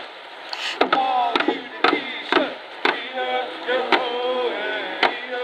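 Sharp knocks, roughly two a second, with people's voices between them.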